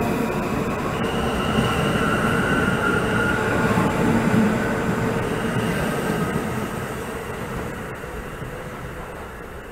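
Subway train running past the platform and pulling away: a rumble of wheels on rail with thin, steady wheel-squeal tones. It fades steadily over the last few seconds as the train recedes.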